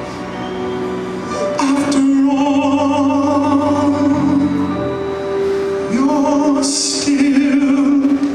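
A male singer singing into a handheld microphone over an instrumental backing track. His voice comes in about one and a half seconds in and holds long notes with vibrato.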